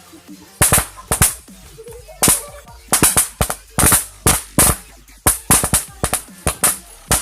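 Roll caps (paper toy caps) going off in a rapid, irregular string of sharp pops, a dozen or more in a few seconds.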